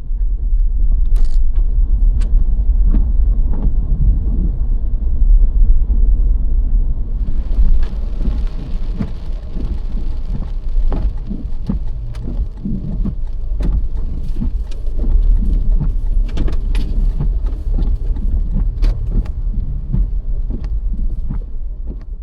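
Toyota Land Cruiser Prado 150 on the move: a heavy, steady low rumble with scattered sharp taps, and a hiss joining about seven seconds in.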